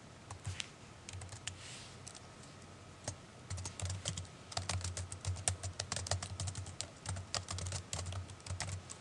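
Typing on a computer keyboard: a few scattered key clicks at first, then steady, rapid typing from about three and a half seconds in.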